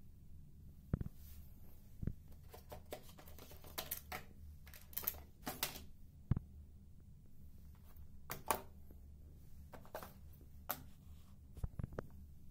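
Scattered light clicks and brief rustles of handling, over a steady low hum.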